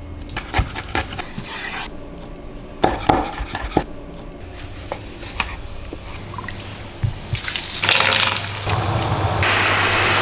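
Kitchen preparation sounds: scattered light knocks and clicks of ingredients being handled and a knife tapping on a plastic cutting board. From about six seconds in comes a louder steady bubbling of calamarata pasta simmering in liquid in a pan.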